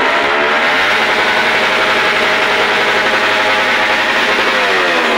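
A vehicle engine running, its pitch rising about a second in, holding steady, then dropping near the end.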